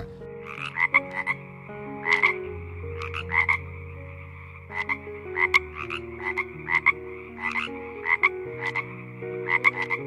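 Frog croaking: short, sharp croaks, often in quick twos and threes, repeated irregularly over soft, sustained low tones.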